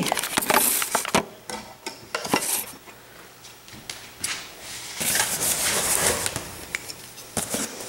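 A cardboard shipping box being handled and opened: scattered knocks and clicks, then a stretch of rustling and scraping about five seconds in as the tape and flaps are worked.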